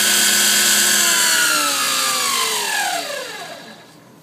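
Belt-driven spindle of a CNC-converted Grizzly G0704 milling machine: a steady whine with hiss, then about a second in it winds down, its pitch falling until it dies away near the end. This is the spindle stopping at the end of a machining run.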